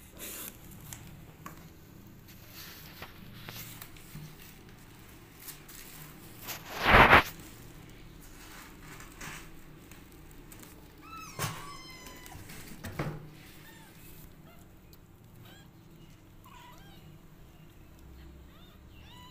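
Young kittens giving a few short, high-pitched mews with gliding pitch, mostly in the second half. A brief loud rustle comes about seven seconds in.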